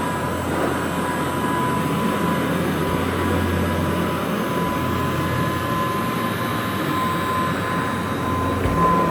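A 1957 Kirby Model 517 upright vacuum cleaner running steadily, its motor and fan giving a constant rushing noise with a steady whine.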